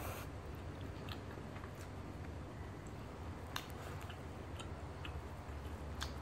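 Close-up chewing of roti prata, with a few short, sharp mouth clicks scattered through, over a low steady hum.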